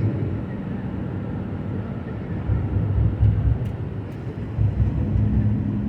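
Vehicle on a highway: a continuous low rumble of road and engine noise that swells a few times, with a low steady hum joining about five seconds in.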